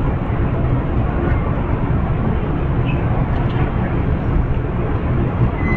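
Steady low rumble of a stopped Amtrak passenger train idling at the station platform, its diesel engines running.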